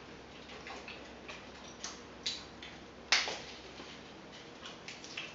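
Chopsticks clicking and tapping against plates as small candies are picked up, in an irregular scatter of light clicks with one sharper click about three seconds in.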